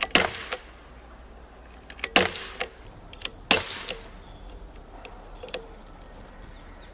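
Daisy Powerline 5501 CO2 blowback BB pistol fired three times, the shots about two seconds and then a second and a half apart. Each shot is a sharp crack with a brief hiss after it, and a few lighter clicks fall between the shots.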